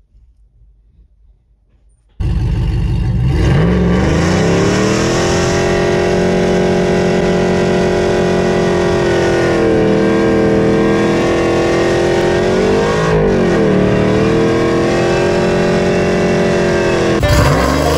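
Ram 1500 pickup's Hemi V8 revving hard during a burnout, the rear tyre spinning on pavement. It starts suddenly about two seconds in, climbs quickly and is held at high revs, dipping briefly and recovering about two-thirds of the way through.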